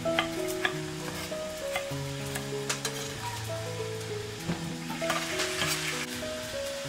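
Kitchen knife cutting through eggplant onto a wooden cutting board, several sharp taps in the first few seconds, with crisp rustling later. Background music with a slow stepping melody runs underneath.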